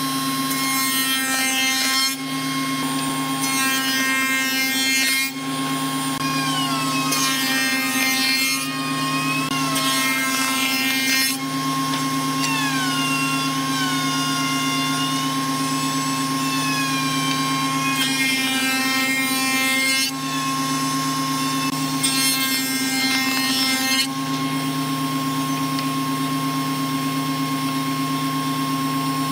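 Spindle moulder (wood shaper) running with a steady hum, its profile cutter head milling a moulding into wooden strips in about six passes of roughly two seconds each. It spins free between passes and near the end.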